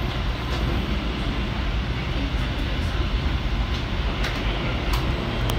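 Danhai light rail tram running slowly, heard from inside its front cabin: a steady low rumble with a few sharp clicks in the second half.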